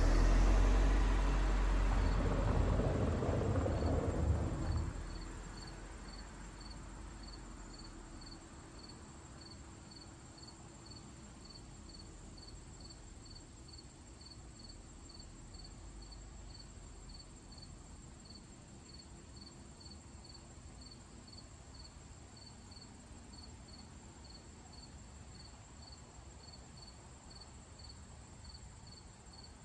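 An SUV drives past close by on the asphalt road, its engine and tyre noise fading away about five seconds in. Then an insect chirps steadily and high-pitched, about two chirps a second, over a faint constant high whine.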